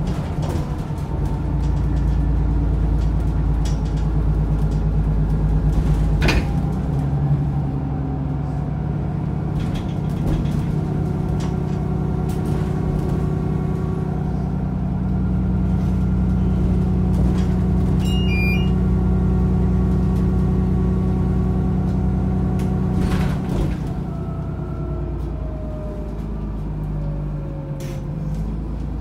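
Alexander Dennis Enviro400 double-decker bus heard from inside while it is on the move: a steady low engine and driveline drone, with whining tones that slide in pitch and occasional knocks and rattles. A short high beep sounds about 18 seconds in.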